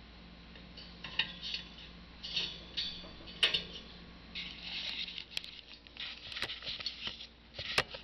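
African grey parrot working the paper on its cage top, making irregular crackling, crinkling rustles broken by several sharp taps and clicks, the loudest near the end.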